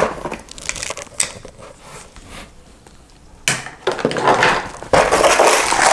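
Packaging being handled: a few light clicks and taps of small parts, then from about three and a half seconds in a loud rustling and crinkling of foam inserts and plastic wrapping that keeps going.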